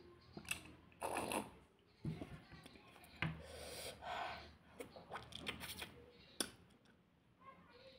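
Eating mouth sounds: sips and gulps of the leftover spiced pani drunk from a glass bowl, then wet sucking on a lime slice. They come as a string of short clicks and brief slurping bursts.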